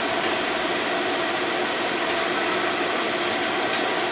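Light-rail tram running as it pulls away from a stop, heard from beside the driver's cab: a steady mix of motor hum and rolling noise with a few steady tones over it.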